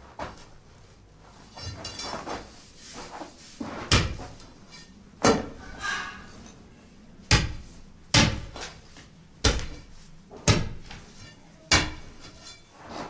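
Steel crowbar striking and chipping at a buried concrete block in hard earth: seven heavy blows about a second apart, starting about four seconds in, with scraping and shuffling before and between them.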